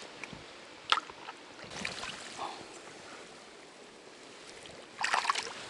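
Water splashing as small caught bream are released back in by hand: a sharp splash about a second in, softer sloshing, then a louder splash near the end.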